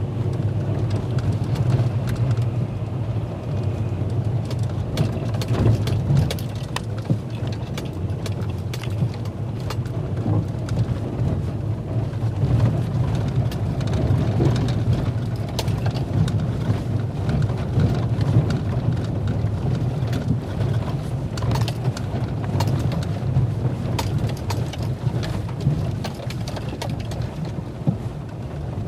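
Nissan Titan pickup driving over rough, snowy ground: a steady low rumble of engine and tyres, with frequent knocks and rattles as the truck bounces.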